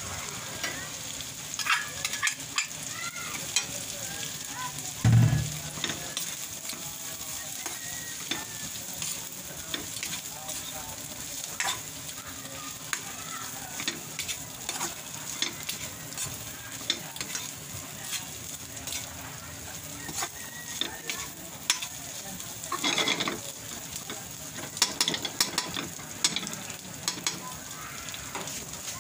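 Food sizzling in hot oil in a wok as a spatula stirs it, with frequent scraping clicks of the spatula against the pan. A heavy knock comes about five seconds in.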